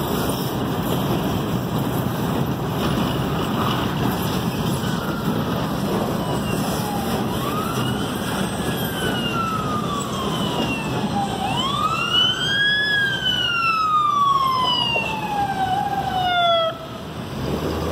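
Freight train boxcars rolling past on the rails, with an emergency vehicle siren wailing over them from about six seconds in. The siren goes in long sweeps that rise quickly and fall slowly, and the second sweep is the loudest. The siren cuts off suddenly near the end.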